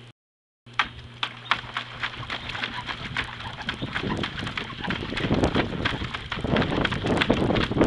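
A puppy splashing and pawing at water: quick, irregular slaps and patters that grow louder and busier about halfway through.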